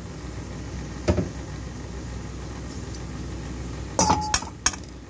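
A metal spatula knocking and scraping against a steel wok while stirring fried radish pods: one knock about a second in, then a quick cluster of clanks, one briefly ringing, near the end. Under it runs a steady low hum.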